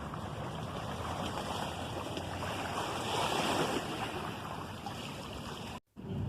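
Steady rushing noise, like wind or running water, that cuts off abruptly near the end.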